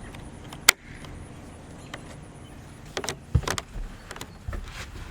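Plastic clicks and knocks of a sunroof wind deflector's mounting hardware being slid and snapped into place on the sunroof frame: one sharp click under a second in, then a few clusters of knocks and clicks later.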